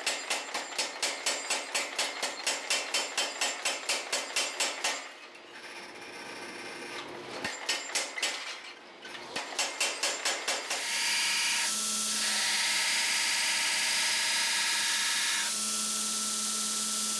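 Mechanical power hammer pounding hot wrought iron at about four blows a second, flattening a round bar into bar stock; the blows stop after about five seconds and come back in two short runs. About eleven seconds in, a belt grinder runs steadily, grinding metal for a few seconds and then running lighter.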